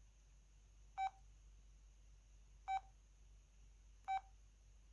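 O2 Ice mobile phone's keypad beeps: three short beeps at the same pitch, spaced a second or more apart, as its menu keys are pressed.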